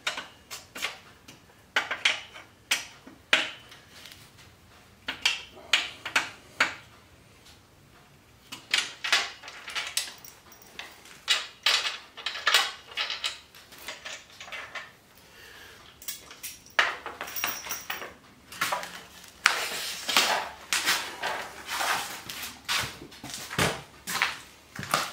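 Metal clanks and knocks as a heavy DeWalt sliding compound miter saw is shifted along the steel rails of a rolling miter saw stand, coming in irregular bursts with short pauses between them.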